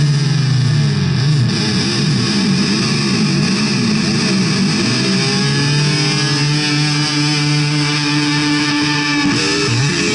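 Distorted electric guitar, a Jackson, played live: the notes bend and waver in pitch for the first few seconds, then settle into long held notes.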